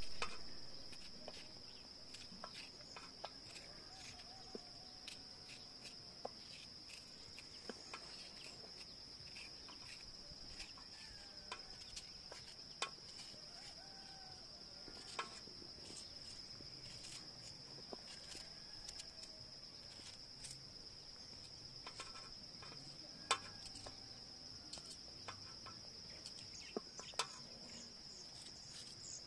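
Insects trilling in one steady, high-pitched, unbroken drone, with scattered sharp clicks and taps and a few faint short calls.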